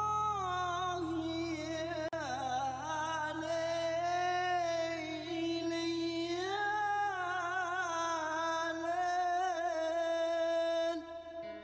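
Music: a solo singing voice holding long, wavering notes over a low steady drone. The voice stops about a second before the end, and the drone drops out a little earlier.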